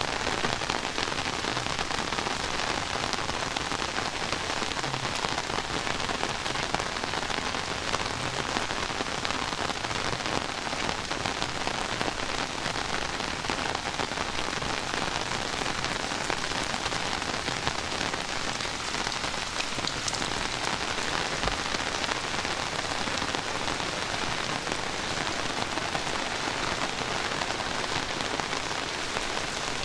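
Heavy rain falling steadily, a dense hiss of drops pattering on surfaces close by.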